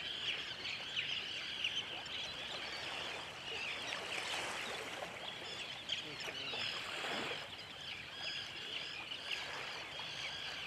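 A flock of seabirds calling without a break, many short, shrill calls overlapping one another, over a steady rush of surf and wind.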